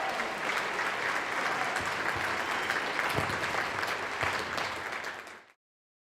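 Audience applauding, a dense, steady clapping that stops abruptly a little over five seconds in.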